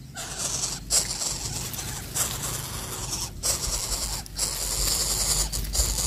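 A nestling hissing rasply, begging for food with its red mouth gaping: long hisses broken by short pauses.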